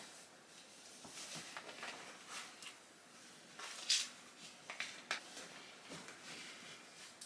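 Rustling of a heavy cotton sweatshirt being pulled on over the head and tugged into place, in a string of short, faint brushes of fabric, the loudest about four seconds in.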